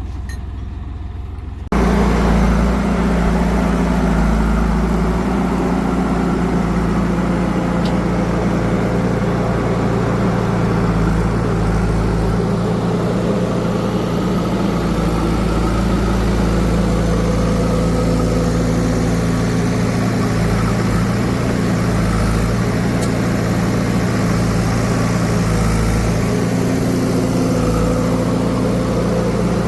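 Heavy diesel engine running steadily at a constant speed. About two seconds in, the sound cuts abruptly from a quieter engine hum to a louder, closer engine.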